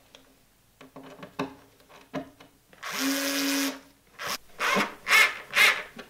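Bosch IXO cordless screwdriver driving a screw through a leather strap into plywood: one steady run of about a second near the middle, then a few short bursts as the screw is driven home. Light clicks and taps before it.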